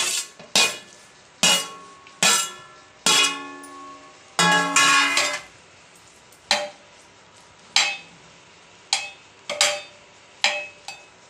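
Metal spoon clinking against a steel plate and the rim of an aluminium pressure cooker while scraping fried onions onto rice: about a dozen irregular clinks, each ringing briefly, the loudest in the first half.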